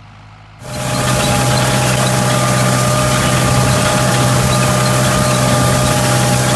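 Tractor engine running steadily, close by and loud: a low hum with a few steady higher whining tones over heavy mechanical noise. It cuts in abruptly about half a second in.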